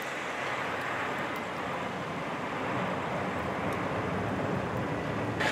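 Snowplow truck driving along a snow- and sleet-covered road, a steady rushing of engine and road noise.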